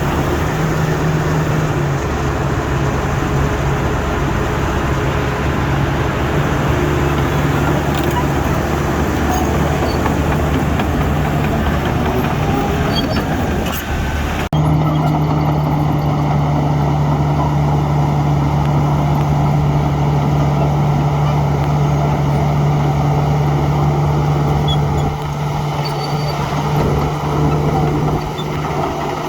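Heavy diesel construction machinery engine running steadily. The engine note changes abruptly about halfway through.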